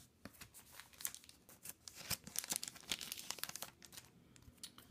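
Plastic sleeves on stiff cardboard shikishi art boards crinkling as the boards are handled and swapped: a run of crackles, densest in the middle, thinning to a few last clicks near the end.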